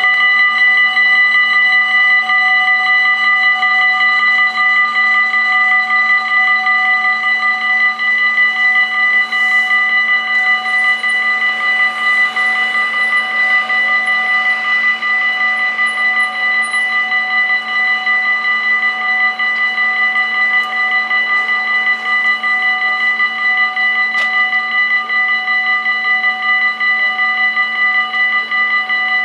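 Dutch automatic half-barrier level-crossing warning bells ringing loudly and without a break: the signal that a train is approaching and the barriers are closing.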